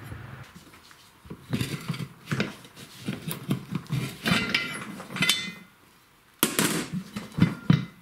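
A manual tire changer's steel bar clanking and scraping against a steel wheel rim and the changer's centre post as a riding-mower tire's bead is pried off: a run of irregular metallic knocks and clinks, a short pause, then a louder burst of clatter near the end.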